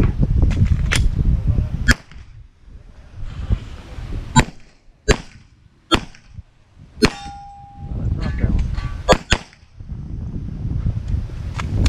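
9mm Glock 34 pistol firing shots in short, irregularly spaced strings, with a steel target ringing briefly just after a shot a little past halfway. A low rumble of wind and movement on the head-mounted camera runs under the stretches where the shooter moves.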